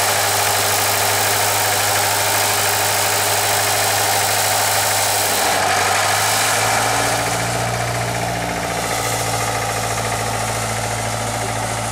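Idling engine of a vintage Caterpillar diesel power unit, which is started with a small gasoline starting engine. It runs steadily; about seven seconds in, a deeper low rumble joins and the sound becomes slightly quieter.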